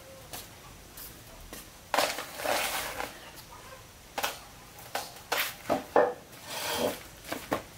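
Irregular knocks and clatter of a small wooden stool being handled and set down on a concrete floor. One sharp knock with a rattly tail comes about two seconds in, and a quicker run of knocks follows in the second half.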